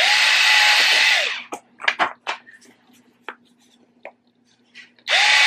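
Small Ryobi cordless screwdriver with a drill bit boring into a dried egg gourd shell: the motor whines up, runs for about a second with the bit grinding through the shell, and winds down. A few small clicks and taps follow, and the drill starts again near the end.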